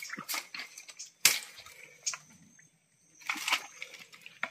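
Machete chopping and splitting an asam payak palm stalk to open it up to the palm heart: a run of sharp chops and cracks, the loudest about a second in, with a quick cluster of strikes near the end.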